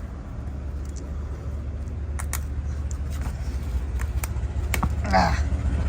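Steady low rumble of passing road traffic, building slightly, with a few sharp light clicks scattered through it.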